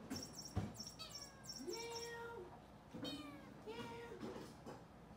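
Kitten meowing twice, each a short held call, the second one just under two seconds after the first. A sharp knock sounds about half a second in.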